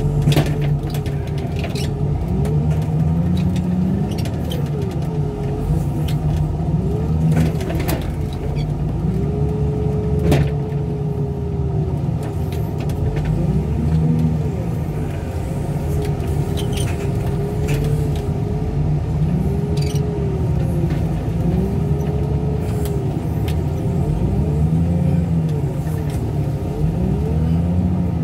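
Heavy equipment diesel engine running under working load, its pitch rising and falling over and over as the load changes, with a few sharp knocks.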